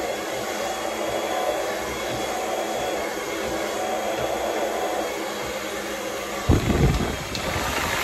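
Conair Silver Bird hair dryer running on its low setting: a steady rush of air as its comb attachment is pulled through the hair. About six and a half seconds in, a louder low rumble lasts a second or so.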